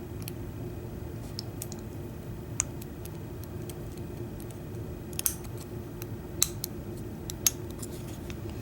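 Light, irregular metallic clicks of a lock pick and tension wrench working the pins of an American 700 padlock, about a dozen ticks scattered unevenly, over a faint steady low hum.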